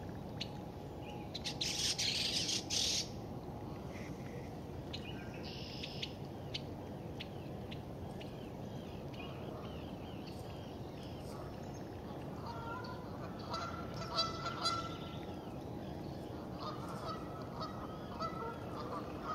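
Birds calling: faint chirps throughout, and two runs of repeated honking calls in the second half. A short loud rush of noise comes about two seconds in, over a steady low background hum.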